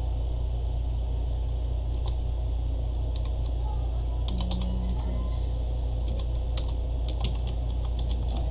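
Computer keyboard being typed on: scattered key clicks, bunched most thickly in the second half. A steady low hum runs underneath.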